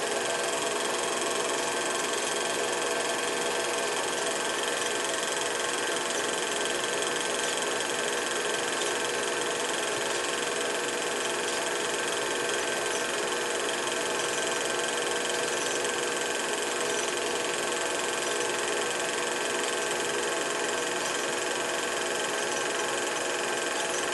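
Film projector running steadily: an even mechanical whirr with hiss and constant hum tones that do not change.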